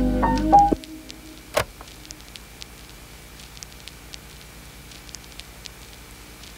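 Background music stops less than a second in, leaving a faint crackle with scattered small clicks and one sharper click a little later.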